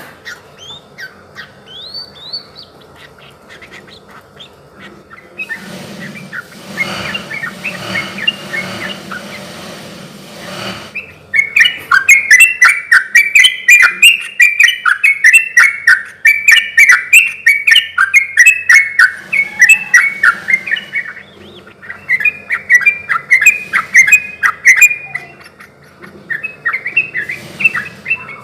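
Yellow-vented bulbuls (trucukan) singing. It starts with faint, scattered notes, and a hiss runs under the calls from about five to eleven seconds. About halfway through, a loud, fast, bubbling chatter of short notes begins and comes in long bursts with brief pauses.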